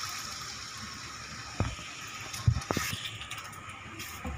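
Water poured into a hot pan of chicken heart masala, with a steady hiss from the pan, then a spatula stirring it with a few knocks against the pan near the middle.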